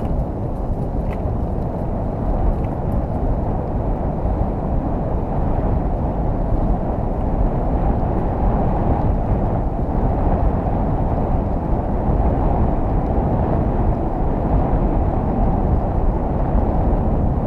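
Steady rushing noise of wind buffeting the microphone of a bicycle-mounted camera, mixed with tyre rumble as the bike rolls along the trail.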